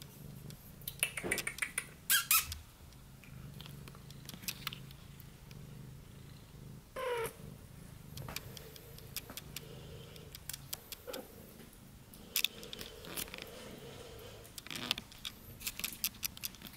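Tortoiseshell Persian mother cat purring low and steadily while nursing her kitten, the purr fading after about ten seconds. There is a brief rising squeak about seven seconds in, and scattered soft clicks and rustles.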